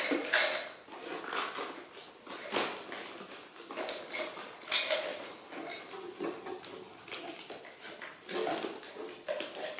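Light plastic toys clicking and clattering on a tiled floor as a baby macaque picks through them, several separate knocks, with the monkey's short small calls now and then.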